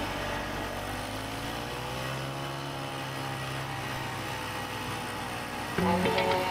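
Vintage Ski-Doo snowmobile's two-stroke engine running as the sled drives past, its pitch rising and then falling away. Music cuts in near the end.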